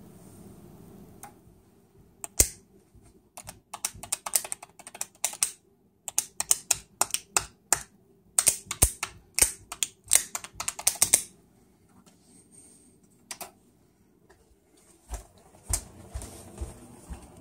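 Clusters of rapid, irregular sharp clicks and pops, starting about two seconds in and stopping about eleven seconds in, with a few soft thumps near the end.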